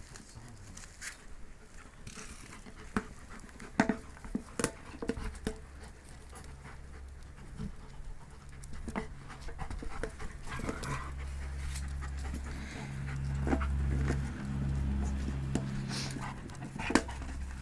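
Large shepherd-type dog panting while biting and dragging an old rubber car tire, with a few sharp knocks as the tire strikes the ground. A low steady rumble comes in partway through and grows louder near the end.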